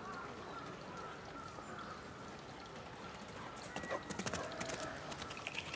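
Spotted hyena's footfalls as it runs past close by: a quick, irregular patter of paw strikes and scuffs on the ground, strongest from about four to five and a half seconds in.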